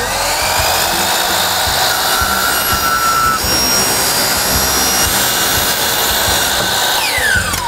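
Power miter saw spinning up and cutting through a white vinyl (PVC) stair rail. Near the end the blade winds down with a falling whine once the trigger is released.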